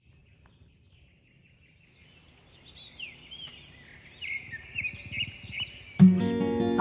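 Outdoor ambience of birds calling in short rising and falling chirps over a steady high insect drone. The bird calls grow louder toward the end, and strummed acoustic guitar music starts abruptly about six seconds in.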